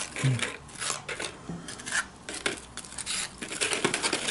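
Crisp round corn tortilla chips rustling and clicking against each other and the foam trays as they are picked up and laid out by hand, in a run of irregular crackles.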